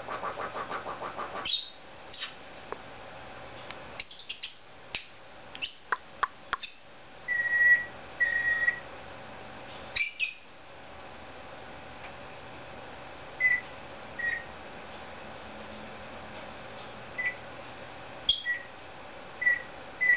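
Cape parrot calling: a quick pulsing run of notes at the start, sharp whistled chirps and clicks, then from about seven seconds in a string of short, steady beeps imitating a microwave oven.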